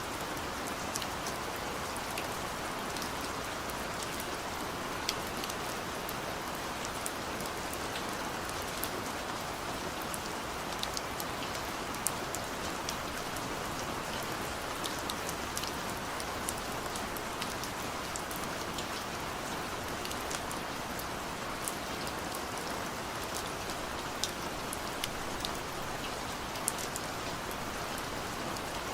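Steady rain falling, a continuous hiss with scattered sharp ticks of individual drops striking a surface.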